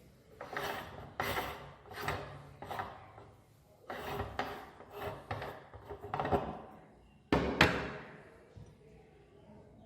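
Meat grinder crushing a chocolate cone: rough crunching and grating in about ten irregular bursts, the loudest and sharpest about three-quarters of the way through.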